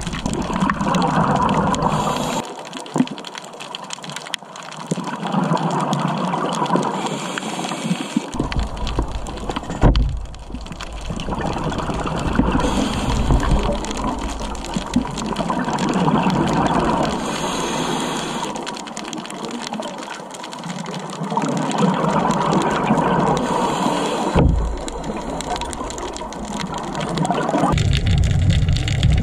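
Scuba diver breathing underwater through a regulator: slow cycles of a short inhaled hiss followed by a longer gush of exhaled bubbles, about every five seconds.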